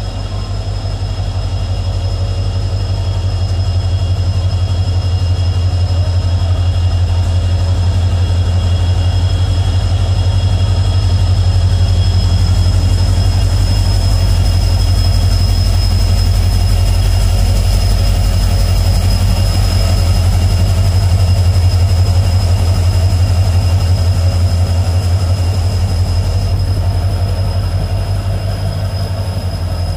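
WDP4D diesel-electric locomotive's EMD two-stroke engine running under power as it pulls out and passes, a heavy pulsing low rumble with a thin steady whine above it. The sound grows louder to a peak about two-thirds of the way through as the locomotive and the cars behind it roll by, then eases off.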